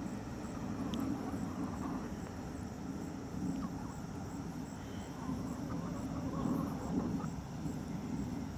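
Insects chirping in an even, repeating rhythm over a steady low background noise.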